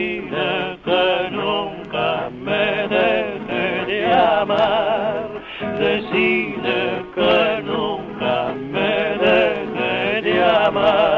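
A male voice singing a zamba with a wide, wavering vibrato over plucked guitar accompaniment. The sound is an old 78 rpm record transfer, narrow and dull with no highs.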